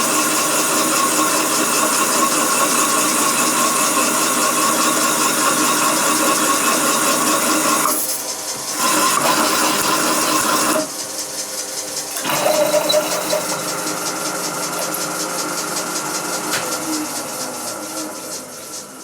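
Machine spindle running a 25 mm carbide hole saw at 250 RPM into 6 mm angle iron: a steady whir with scraping from the cutter, broken by two sudden drops about 8 and 11 seconds in, then fading away near the end. The cut is too heavy for this hole saw, which is smashed by it.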